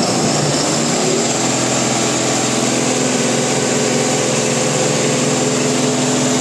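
Mahindra Blazo X 28 BS6 truck's diesel engine revved up. Its pitch shifts briefly in the first second, then holds at a steady high speed. It runs without the injector knock now that the faulty injector has been replaced.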